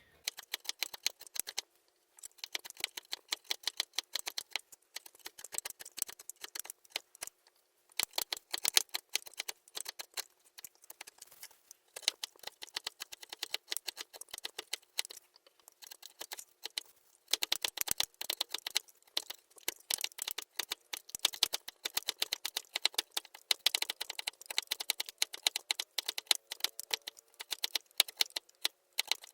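Knife blade shaving and carving a small wooden plug against a wooden board, sped up: a rapid, dense run of clicks and scrapes, broken by a few short pauses.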